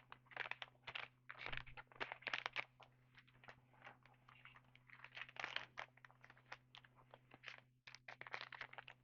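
Plastic trading-card packs and cards being handled, crinkling and rustling in quick irregular bursts, with a faint low steady hum underneath.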